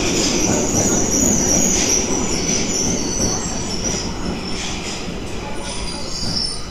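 Tokyo Metro Ginza Line subway train pulling into the platform, its running rumble overlaid with high squealing from the wheels and brakes as it slows to a stop.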